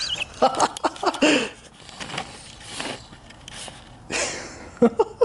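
A person's wheezing laughter and gasping breaths in short outbursts, with a few sharp clicks.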